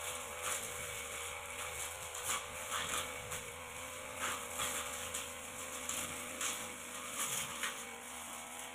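Backpack brush cutter with a long tanika blade, its engine running steadily while the blade swishes through grass and ferns in irregular strokes.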